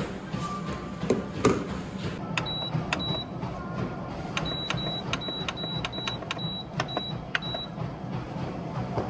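Treadmill control console beeping as its buttons are pressed: a run of about ten short, high beeps, each with a click, from about two seconds in until past the middle, over a steady low hum.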